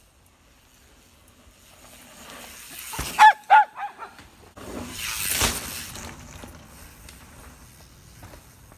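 A mountain bike and dog approaching on a dirt trail, the dog letting out three quick barks, then a loud rush of tyre noise as they pass close by and fade away.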